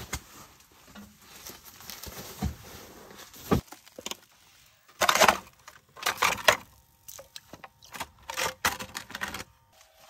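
Handling noise as a person moves about and handles gear in a small ice-fishing shelter: rustling and clattering in short, irregular bursts.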